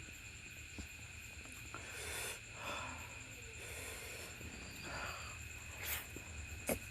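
A person eating: a few short, soft chewing and mouth sounds, with a sharp click near the end, over a steady faint high-pitched whine.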